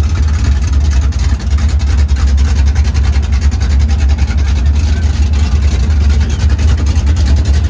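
Car engine idling loudly with a deep, steady rumble.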